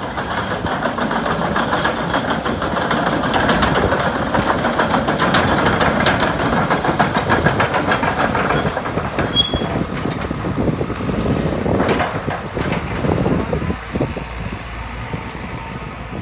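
Diesel engine of a JCB JS130LC tracked excavator running, with a fast, even pulsing. It is louder for about the first ten seconds, then settles lower, with a couple of sharp metallic clicks.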